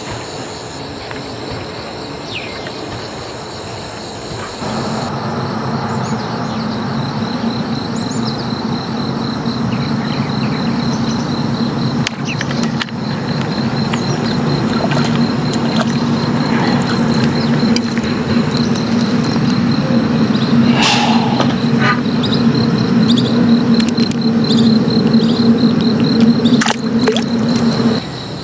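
Insects chirring steadily, with a low steady motor hum that comes in about five seconds in, grows louder, and cuts off near the end.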